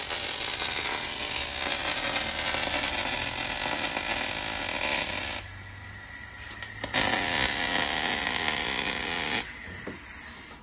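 MIG welder arc crackling as it welds a steel subframe, in two long runs: the first stops about five seconds in, the second starts after a short break with a few clicks and stops shortly before the end.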